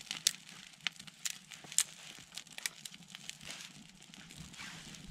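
Small campfire of split kindling and birch bark just catching, crackling with irregular sharp pops.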